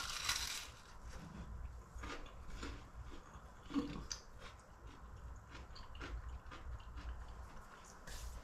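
A person biting into a crisp-crusted Yorkshire pudding, a loud crunch at the start, then chewing it close to the microphone with scattered soft crunches.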